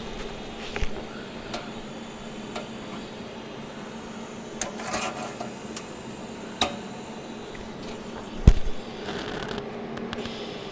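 A steady machine hum with scattered sharp clicks and metal knocks from work on a stainless steel fuel tank, with one heavier thump near the end.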